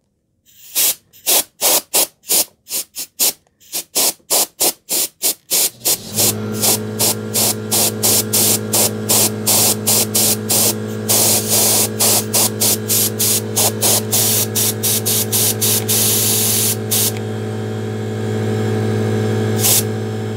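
Rapid clicks, about three a second, as the hot glue gun is worked. About six seconds in, an electric air blower starts and runs with a steady hum, and the clicking carries on over it. Its rushing air grows loudest twice as it blows the hot glue into fine cobweb strands.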